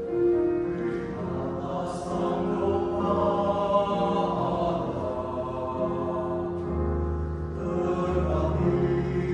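Mixed church choir singing slow, long-held chords with piano accompaniment; a deep bass note comes in about seven seconds in.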